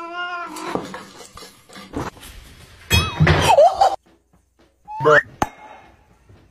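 A cat's wavering meow at the start, followed by knocks and clatter, then a loud cry with bending pitch about three seconds in and a short rising squeak with a sharp click about five seconds in.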